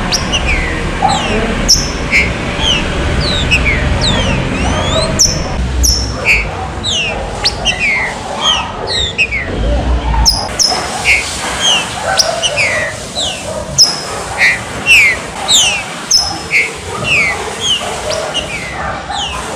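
Green-winged saltators (trinca-ferro) calling: a dense run of short, high, downward-sweeping whistles from several birds overlapping. A low rumble sits under the first half and drops away about ten seconds in.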